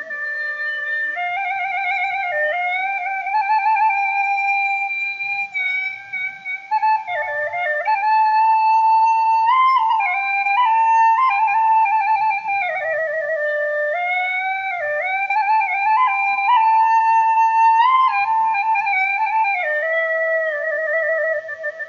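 Background music: a slow solo flute melody, its held notes wavering with vibrato as it steps up and down.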